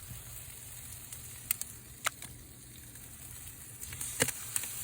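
Barbecue pig tails sizzling, a steady hiss with a few sharp pops.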